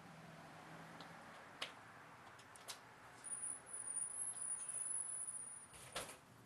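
Quiet room with a few light clicks and a thin, high-pitched whine lasting about two seconds in the middle, the handling noise of a handheld camera being panned.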